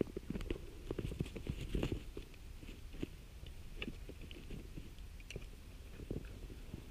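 Rubber boots stepping in shallow wet snow: a run of irregular soft crunches with some clothing rustle, busiest in the first two seconds, then a few scattered steps.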